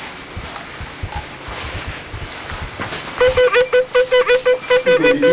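Crickets chirping steadily in a pulsing high trill. From about three seconds in, a rapid series of short, sharp pitched notes joins them, about five a second, with a few sliding notes near the end.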